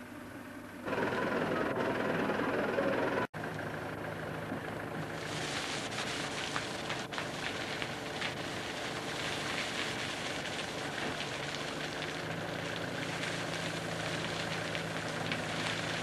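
Hydrema backhoe loader's Perkins diesel engine running steadily. From about five seconds in, a dense crackle and patter of gravel tips from the raised front bucket into a Hesco barrier.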